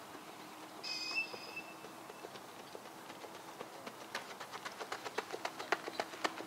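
Running footsteps on a dirt softball infield, a quick even patter of strikes that grows louder over the last couple of seconds as the runner closes in. A brief high tone sounds about a second in.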